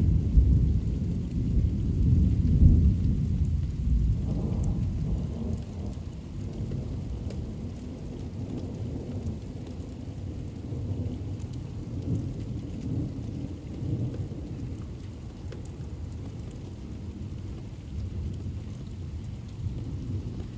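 Thunder rumbling loudly through the first few seconds, then slowly dying away into fainter rolling rumbles, over steady rain.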